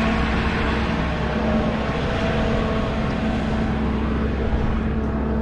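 Vehicle engine running steadily, a constant engine drone over road and wind noise.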